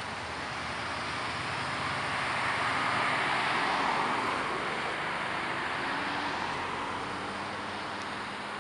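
Cars driving past close by: the tyre and engine noise swells to a peak about three to four seconds in, then fades away.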